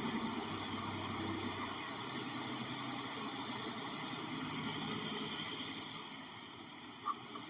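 AFACAN 10 HP metal-cutting circular saw, with its 7.5 kW motor and 520 mm blade, running with a steady mechanical noise that dies down toward the end. A brief sharp sound near the end.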